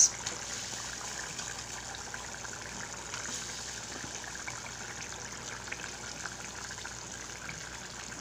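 Sardine curry boiling in a clay pot: a steady bubbling hiss with many small pops as whole sardines are laid into the gravy. A single sharp clink right at the start.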